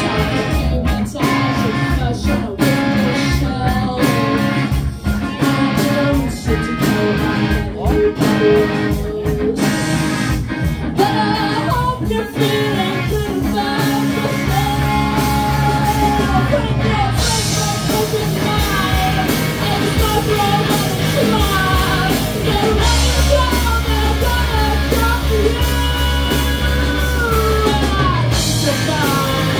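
Live rock band playing electric guitars, bass guitar and drums. For roughly the first twelve seconds the band plays clipped, stop-start chords; after that a voice sings a melody over steady bass and cymbals.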